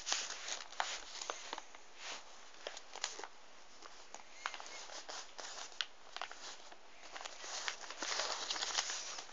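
Sheet of paper being folded and handled: irregular rustling and crinkling with many small sharp clicks and taps, busiest near the end.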